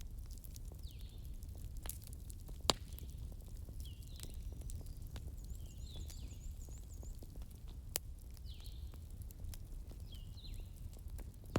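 Wood fire crackling with scattered sharp pops, the two loudest about a third of the way in and two thirds in, over a steady low rumble. Short chirps, like a small bird calling, repeat every couple of seconds in the background.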